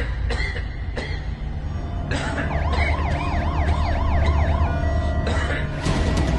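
Low, dark background music under an emergency-vehicle siren that warbles up and down several times a second, coming in about two seconds in and dropping out about five seconds in. Near the end a fast ticking beat starts.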